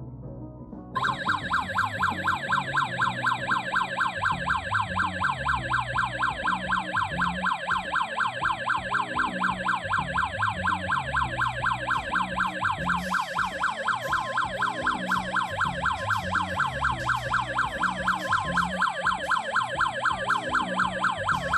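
Strazh Mini GSM security alarm's siren sounding after being triggered while armed, a loud electronic wail that sweeps up and down rapidly several times a second. It starts about a second in and keeps going.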